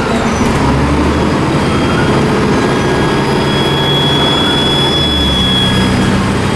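Dennis Trident II bus's diesel engine running under way, with a high, thin turbocharger whistle that swells over the middle of the stretch and fades near the end. The low engine note shifts about half a second in and again about five seconds in.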